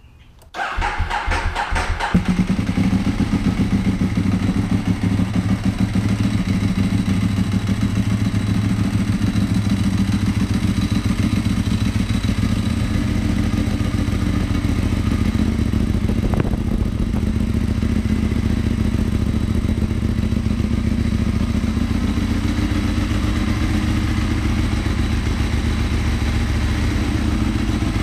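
Cold start of a 2009 Ducati 1198S's 1198 cc L-twin engine. The starter cranks for about a second and a half, then the engine catches and settles into a steady idle. It catches quickly, helped by new high-capacity battery cables.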